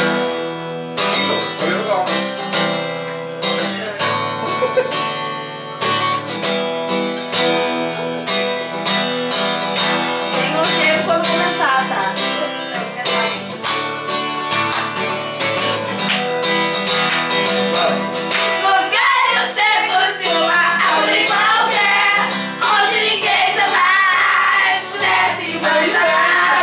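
Acoustic guitar strummed in steady chords, with a woman singing along. The singing grows stronger over the second half.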